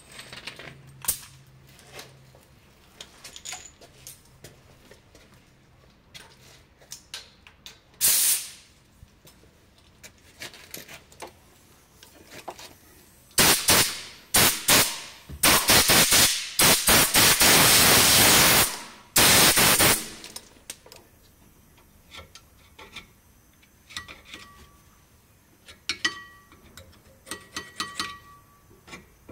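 Loud hissing bursts of pressurised spray on the rear brake parts: one short blast, then a run of four or five, the longest about three seconds. Light tool clicks and knocks come between them.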